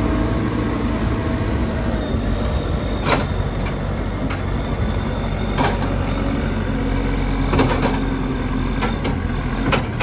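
JCB 214 backhoe's diesel engine idling steadily, with four short sharp knocks over it.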